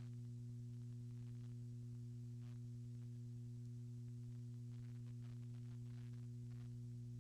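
Steady electrical hum, a low buzz that does not change, with faint muffled voices now and then.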